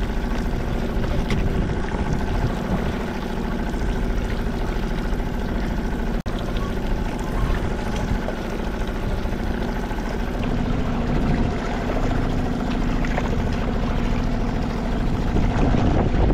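A boat motor running steadily, a continuous drone with a momentary break about six seconds in.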